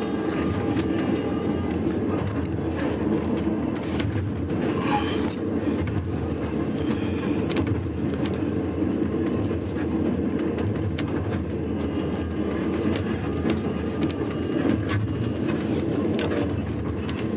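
Passenger train running along the track, heard from inside the carriage: a steady low rumble with scattered clicks and knocks from the wheels and rails. A brief high squeak rises about five seconds in.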